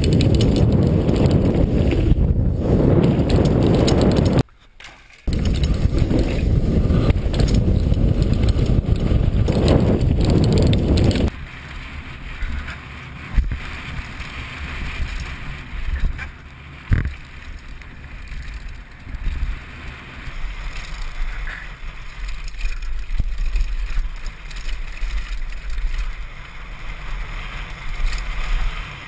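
Mountain bike riding fast down a dirt trail, heard from a helmet-mounted camera: heavy wind buffeting on the microphone mixed with tyre and frame rattle over rough ground. It briefly cuts out about four seconds in, and from about eleven seconds in drops to a quieter rush of wind and tyre noise with a few sharp knocks.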